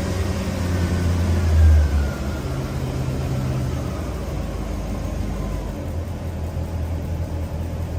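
Toyota 1UZ-FE V8 engine running on a little throttle, with a rev rising and falling back about two seconds in, then running steadily lower. It will not keep running without throttle, a no-idle fault that the owner traces to the idle speed control valve not resetting.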